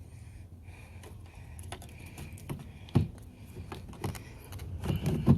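Light plastic clicks and taps from a car side mirror and its wiring being handled and fitted back into the door, with a sharper knock about three seconds in and another near the end.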